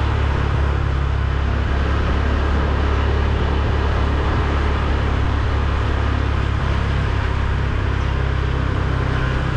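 Motorbike ridden at a steady pace along a street: the engine runs evenly, with a continuous low rumble and road noise and no change in speed or revs.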